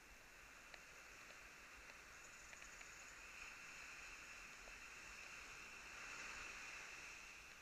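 Faint wash of breaking surf on a beach, swelling about halfway through and easing off near the end, with a few faint ticks.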